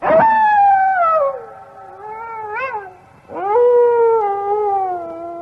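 Two long, drawn-out animal cries that each hold a clear pitch: the first starts high and falls, and the second rises, then holds steady and slowly falls away.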